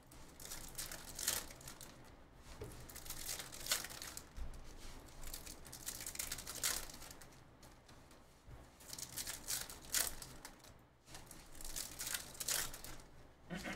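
Bowman University Chrome trading-card pack wrappers crinkling and tearing as they are ripped open by hand, in short crackling rustles every second or two.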